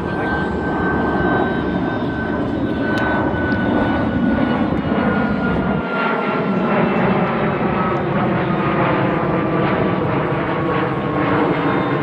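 Airplane flying over: loud steady engine noise with a whine that slowly falls in pitch.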